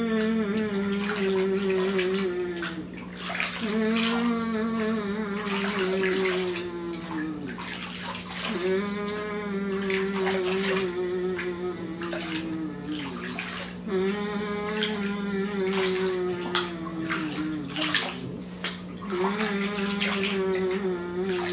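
A woman in labour moaning through a contraction: about five long, drawn-out moans of a few seconds each, wavering and sliding down in pitch at the end, with water moving in the birth pool.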